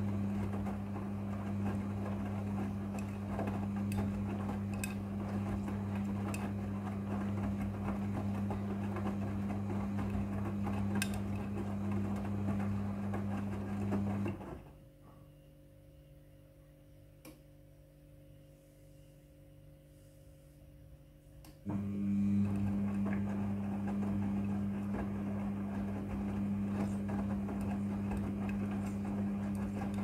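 Midea front-loading washing machine turning its drum through the wash cycle, with a steady motor hum and laundry tumbling. About halfway through the drum stops for about seven seconds of near quiet, then starts turning again.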